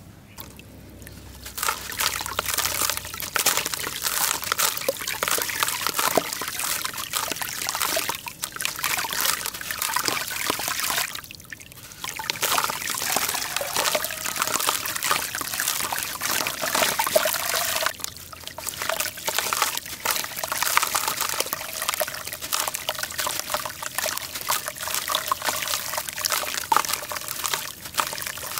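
Hands crumbling a wet block of charcoal into a basin of water: gritty crunching and crackling, with trickling and splashing as paste and lumps drop into the water. It starts about a second and a half in, with a few brief pauses.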